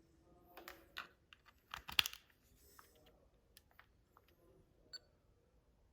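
Faint, irregular clicking of computer keys, about a dozen separate clicks, the loudest about two seconds in.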